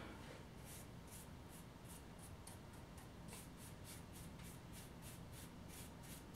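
Wide paintbrush bristles sweeping loose scenery dirt off a flat model-layout surface: faint, quick, even strokes at about three or four a second.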